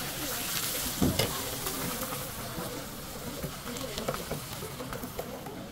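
Batter sizzling on a hot round griddle as a Korean jeon of napa cabbage and green onion is ladled and spread, with a dull thump about a second in.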